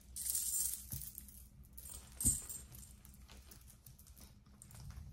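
Jewellery being handled: a short rustle of packaging, then faint clinks and taps of small metal pieces, with one sharper knock about two seconds in.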